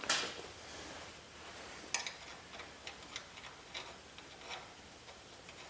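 Light metal clicks and taps from steel brake parts being handled and fitted by hand: a sharp knock at the start and another about two seconds in, then a string of small ticks, about three or four a second.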